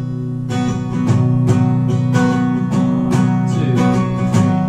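Acoustic guitar strummed in a steady rhythm, about three strums a second, playing the introduction to a song before the singing comes in.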